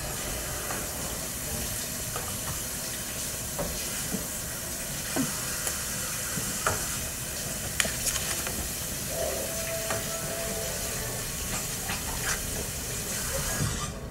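Tap water running steadily into a sink during washing up, with a few light knocks, cutting off near the end.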